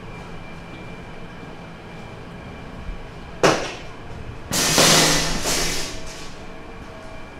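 Stainless-steel sausage steaming cabinet in a factory: a steady machinery hum, a sharp metallic clank about three and a half seconds in, then a loud rushing hiss lasting about a second and a half.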